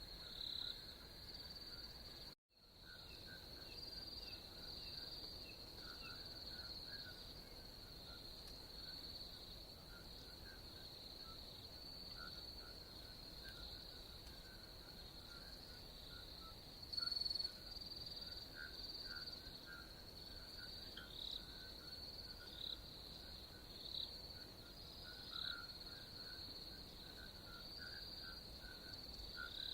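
Faint insect chorus: crickets trilling steadily at a high pitch, with scattered short chirps lower down. The sound drops out briefly about two seconds in.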